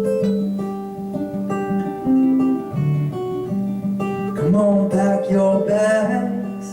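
Acoustic guitar playing the opening of a song live, clear single notes changing every half second or so. A voice comes in singing about four and a half seconds in.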